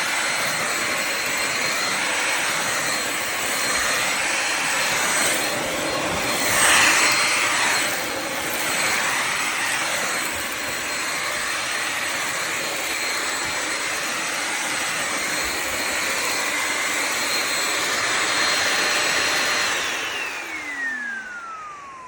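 Bissell Symphony Pet steam mop and vacuum cleaner's motor running with a steady high whine. It is switched off about 20 seconds in, its whine falling in pitch as the motor spins down.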